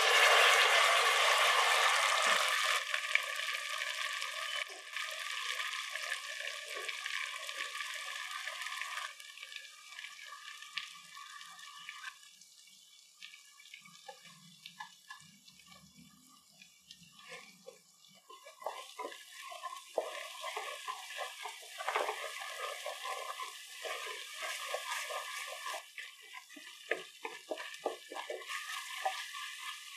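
Ground masala paste poured into hot oil in a pressure cooker hits with a loud sizzle that fades over the first few seconds into a softer spluttering. In the second half a wooden spatula stirs the frying paste, with irregular crackles and scrapes.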